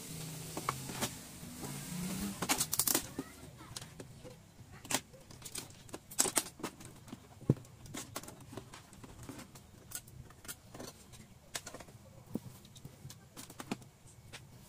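Scattered plastic clicks and knocks as the back cover of an LED TV is worked loose and lifted off, with one sharper knock about halfway through.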